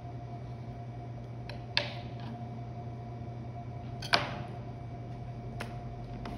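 Two sharp knocks about two seconds apart as a butcher knife and trimmed chicken pieces are handled on a plastic cutting board and a metal sheet tray, the second louder with a brief ring, over a steady low hum.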